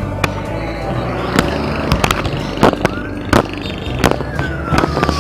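Bicycle ridden along a concrete road: steady wind and road rumble with frequent sharp knocks and rattles from the bike and the camera it carries. Near the end, a high tone starts and glides steadily downward.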